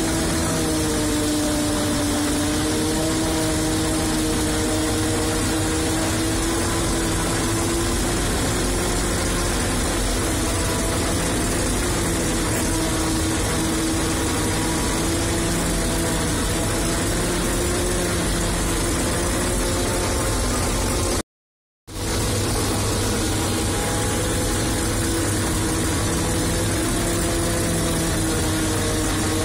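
Fortschritt E-281 self-propelled forage harvester working through standing maize, heard from inside its cab: a steady, unbroken machine drone with a humming tone that wavers slightly in pitch. The sound cuts out completely for about half a second roughly two-thirds of the way through.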